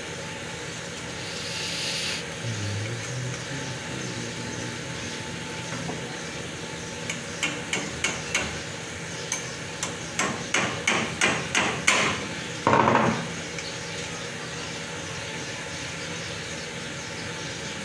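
Sharp metallic taps and clicks from hand-tool work on an embroidery machine's back shaft: a few spaced taps, then a quicker run of about eight, ending in a short scraping clatter, over a steady low hum.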